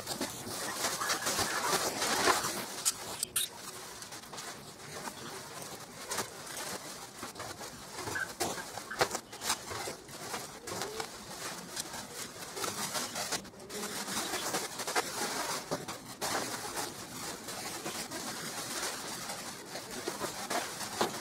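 Crinkling and rustling of a foil-faced fibreglass insulation bag and its plastic wrapping being handled and pressed against a door, a steady crackle dotted with sharp snaps.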